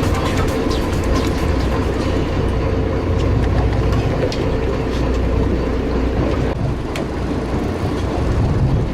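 Charter boat's engine running steadily, a continuous low rumble with a steady hum.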